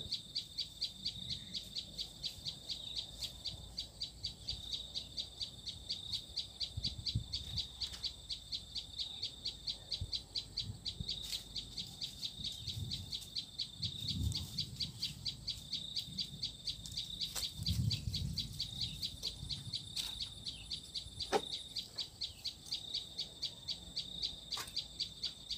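A high-pitched chirping call repeated evenly, about three times a second, without a break, with a few faint clicks and soft low knocks from hands at work close by.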